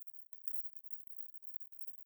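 Near silence: only a faint, steady high-pitched hiss.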